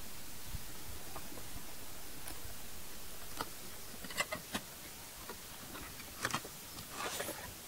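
Cardboard box being opened by hand: a few sharp clicks and scrapes as the lid's tabs are pulled free and the lid is worked open, ending in a short rustle, over a steady hiss that drops a little about three seconds in.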